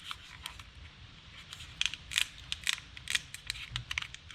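An irregular run of small sharp clicks and crackles from hands handling and pressing a plastic tail-light housing and its freshly applied adhesive gasket. The clicks come thicker in the second half.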